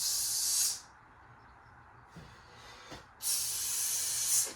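A blade slicing down the cardboard packaging of a washing machine: two long hissing strokes, a short one at the start and a longer one about three seconds in.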